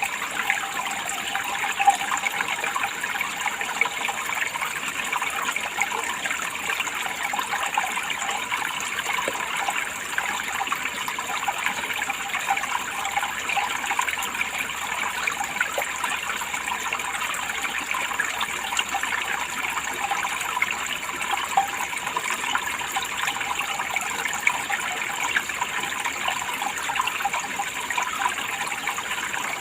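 Running water, a steady unbroken rush with many small splashes and no pauses.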